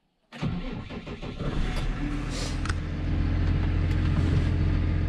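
Case IH Puma tractor's diesel engine starting from inside the cab: it cranks and catches about a third of a second in, then settles into a steady idle.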